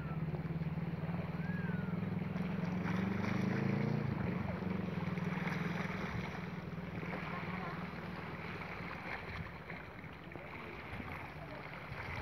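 Boat engine droning low and steady, fading after about four seconds, over a steady background of wind and water.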